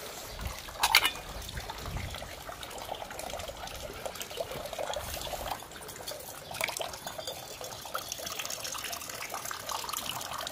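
Spring water trickling steadily from a stone fountain spout into a stone basin and into a stainless-steel ladle held under the stream. A brief sharp clatter about a second in.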